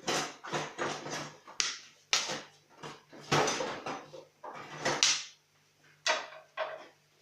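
Popcorn kernels popping in a covered pot: about a dozen sharp, irregular pops that come in clusters, with short gaps between, as the popping tails off near done. A faint steady hum runs beneath.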